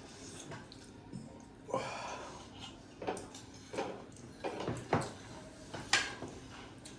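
Eating sounds from a noodle meal: scattered short clicks and smacks, with a noisy slurp about two seconds in.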